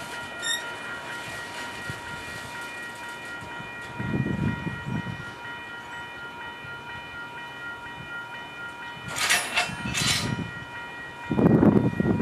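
Freight cars rolling slowly along the track during switching, with a steady high-pitched ringing tone held throughout. Short bursts of noise come about three quarters of the way through, and a louder low rumble starts near the end.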